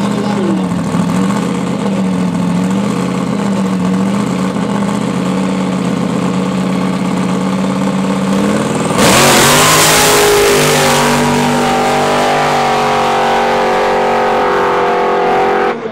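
Supercharged Plymouth Duster drag car held on the start line with a Toyota Celica beside it, its engine revs swinging up and down. About nine seconds in, both cars launch at full throttle: a sudden loud blast whose engine pitch climbs and steps up as they pull away.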